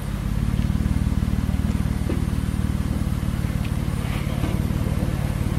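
Jeep engine running steadily at low revs during slow rock crawling.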